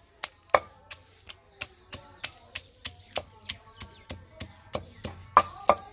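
Wooden pestle pounding dried red chillies in a stone mortar, steady knocks about three a second, a few of them harder near the end.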